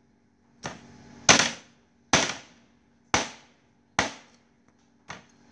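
Heavy meat cleaver chopping pieces of raw duck on a round wooden chopping block: six sharp chops, about one a second, the second one the loudest.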